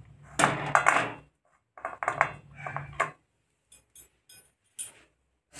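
Aluminium cake tin scraping and clinking against the metal kadhai as it is settled into the hot water, in two bursts about a second long each, then a few light ticks near the end.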